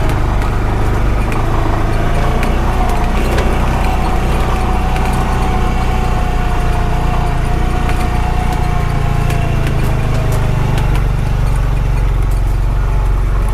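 Honda Pioneer 520 side-by-side under way on a rough dirt road: a steady low engine drone with a faint whine that drifts up a little and fades about ten seconds in, and scattered light clicks and rattles.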